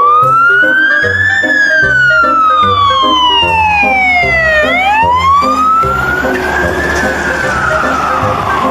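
A wailing siren that slowly rises and falls, twice over, over background music with a steady beat.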